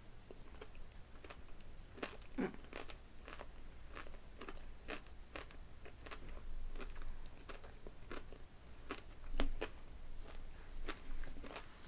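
A person chewing a mouthful of four Cookies and Scream M&M's, the candy shells crunching in short, irregular bursts, with one louder crunch late on.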